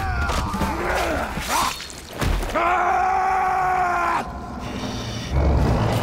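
Strained grunts of a hand-to-hand fight, then a man's loud, held yell lasting nearly two seconds. A low engine rumble comes in near the end.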